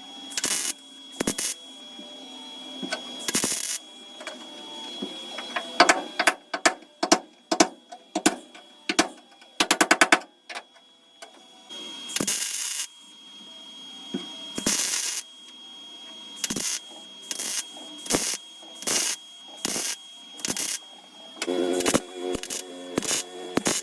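Welder laying a string of short tack welds to fill screw holes in a steel floor pan: brief bursts of crackling, irregularly spaced, with a fast-crackling run about ten seconds in.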